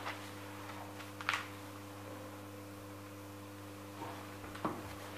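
Quiet room tone with a steady low electrical hum, broken by a short click about a second in and a fainter one near the end.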